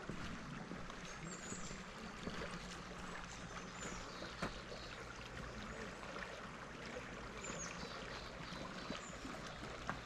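Steady rush of flowing stream water, with a few faint high chirps.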